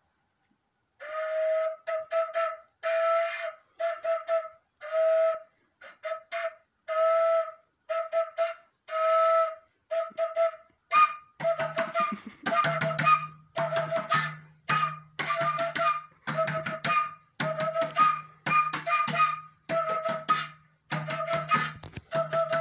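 Wooden end-blown flute playing short, breathy notes, mostly on one pitch, in phrases broken by pauses. From about halfway a low steady tone sounds under each note, and sharp hits on the small hand drum join in.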